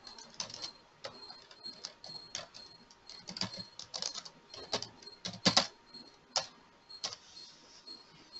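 Computer keyboard typing: irregular key clicks, one louder keystroke about five and a half seconds in.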